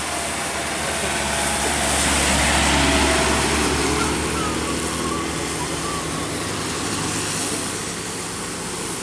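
A road vehicle passing on a wet road: a low engine rumble and a hiss of tyres on water swell to a peak about two to three seconds in, then fade back.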